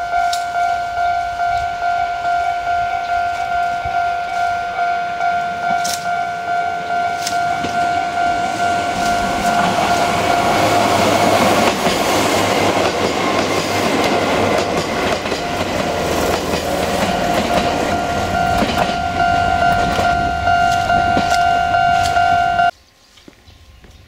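Japanese level-crossing warning bell rings steadily while a Chichibu Railway 7500-series electric train approaches and passes close by. The noise of its wheels on the rails swells to its loudest about halfway through and fades again. The crossing bell cuts off suddenly near the end.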